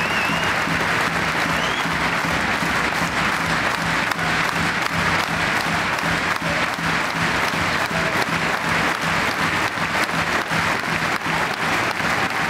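Large stadium crowd applauding steadily, a dense, even clatter of many hands clapping.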